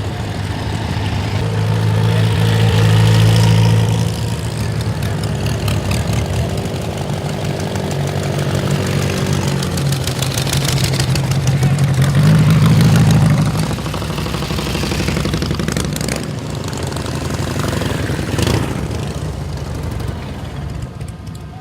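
Antique motorcycle engines running as bikes ride past, the engine note swelling louder about two seconds in and again, rising in pitch, about twelve seconds in. Voices murmur underneath.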